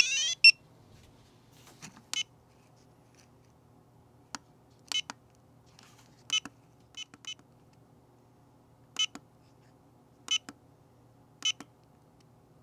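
An Alphapoc 602R POCSAG pager's pulsing alert tone ends about half a second in. After that come about ten short, high beeps at uneven intervals, the pager's key beeps as its buttons are pressed to scroll through stored messages.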